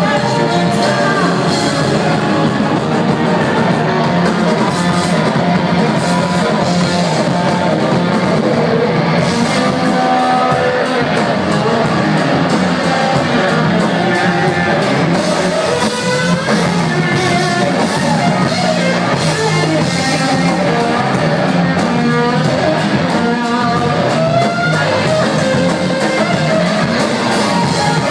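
Rock band playing live: a singer over electric guitar and drums, loud and continuous.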